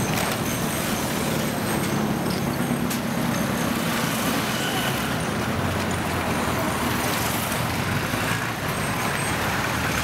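Road traffic: car and motorbike engines running and passing in a steady wash of street noise.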